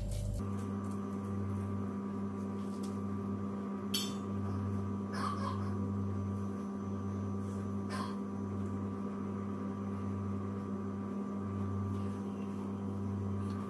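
Steady electrical hum, like a small motor or appliance running, with a few faint soft clicks.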